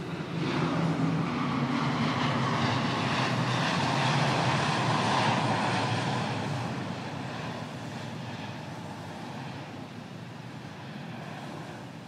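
Military aircraft flying past. Its engine noise swells about half a second in, is loudest around four to five seconds, then fades away steadily as it recedes.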